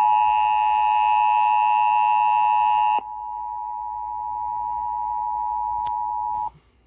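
Emergency Alert System attention signal: a loud, steady two-tone alarm. About three seconds in it drops to a single quieter steady tone, which cuts off near the end. It announces the tornado warning that follows.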